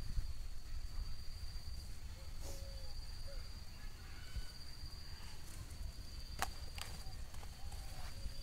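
Rural ambience: a steady high-pitched insect trill that breaks off about seven seconds in, with scattered short bird calls over a low rumble. Two sharp clicks come about six and a half seconds in.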